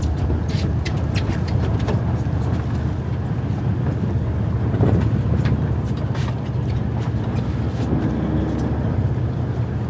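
Boat engine running steadily with a low rumble, with scattered light clicks and knocks over it.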